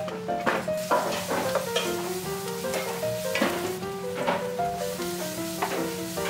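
Chopped green onion, minced garlic and ginger sizzling in hot oil in a nonstick pan, stirred with a wooden spatula that scrapes the pan in short strokes. Plucked background music plays underneath.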